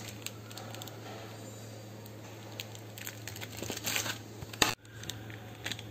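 Plastic packet of cornflour crinkling as it is handled and opened, over a faint steady electrical hum. The crinkles thicken a little past the middle, and there is one sharp click near the end.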